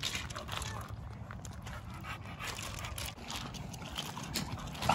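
A dog panting, with scattered light crunches of paws on gravel.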